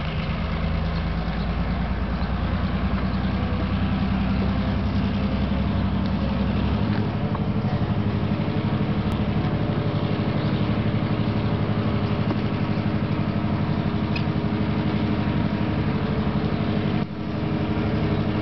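An engine running steadily: a low hum with a regular throb and a brief dip in loudness near the end.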